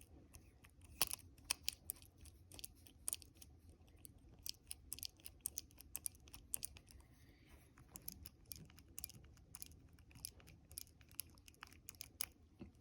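Faint, irregular small clicks and scrapes of a Huk tubular lock impressioning tool being pushed and twisted in a tubular lock as its feelers work against the pins.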